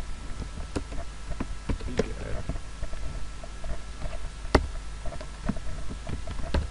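Computer keyboard keys clicking now and then, a handful of separate keystrokes, the loudest a little past the middle, over a steady low hum.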